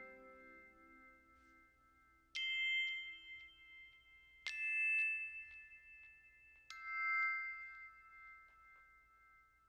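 Background music of bell-like chime notes: three notes struck about two seconds apart, each ringing out and slowly fading, while the tail of an earlier chord dies away at the start.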